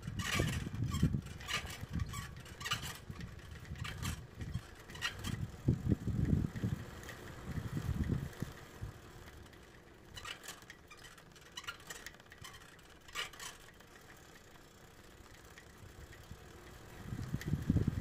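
Outdoor ambience: an uneven low rumble that swells and fades, with scattered sharp clicks or crunches, busiest in the first half and quieter for a few seconds before the rumble returns near the end.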